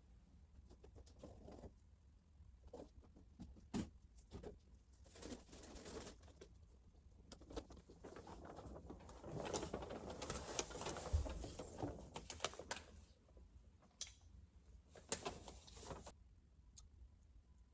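Faint handling noises: scattered clicks and taps, with a longer stretch of rustling in the middle.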